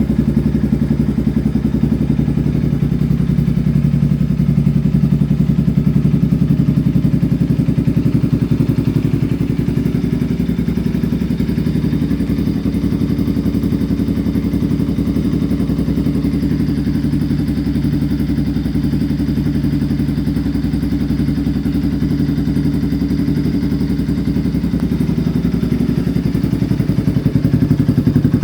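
Bajaj Pulsar 200 motorcycle's single-cylinder engine running steadily at a low, even speed through an aftermarket Akrapovic exhaust, with a deep, pulsing note.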